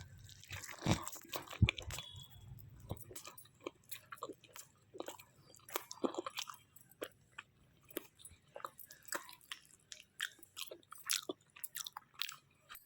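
Close-up chewing of a chicken shawarma wrap: irregular small wet clicks and snaps of the mouth working the food, a few louder ones in the first couple of seconds.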